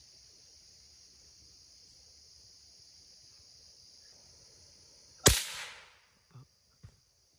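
A steady high insect drone, then a single sharp gunshot about five seconds in that dies away over most of a second. Two faint clicks follow.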